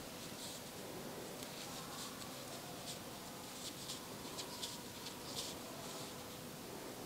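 Crochet hook working wool yarn: faint, irregular soft scratches and rustles as stitches are pulled through.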